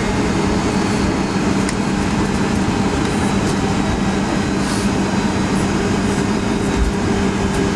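Cabin sound of a Boeing 757-200 taxiing: a steady rumble and hum from its Pratt & Whitney PW2000-series turbofans at idle and the rolling airframe, with a few light rattles and a low thump near the end.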